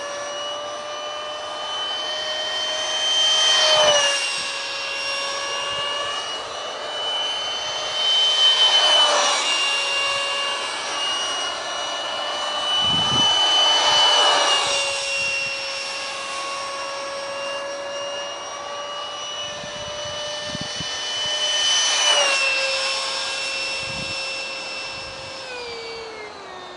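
High whine of a Detrum 70mm electric ducted fan driving a foam flying-wing RC jet in flight. It swells several times as the jet passes close, and the pitch drops as it goes by.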